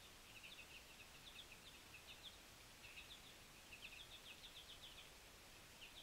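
Faint high chips and twitters of small songbirds, coming in quick runs of several short notes again and again, over a steady hiss.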